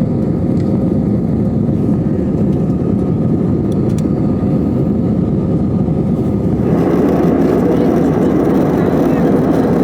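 Steady rushing drone of a jet airliner's cabin in flight: engine and airflow noise heard from a passenger seat. About two-thirds of the way through it grows a little louder and brighter.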